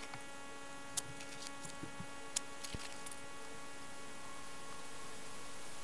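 A steady electrical hum, with a few light clicks and taps of small parts being handled on the workbench, the sharpest about a second in and another about two and a half seconds in.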